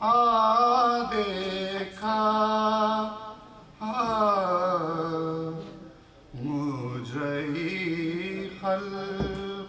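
A man reciting a marsiya, an Urdu elegy, as an unaccompanied sung chant: long held notes with wavering, gliding ornaments, in several phrases separated by brief breaks.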